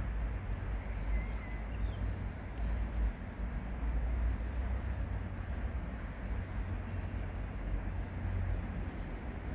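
HŽ Cargo freight train of Eas open wagons behind a class 1141 electric locomotive rolling past: a steady low rumble without distinct wheel clacks.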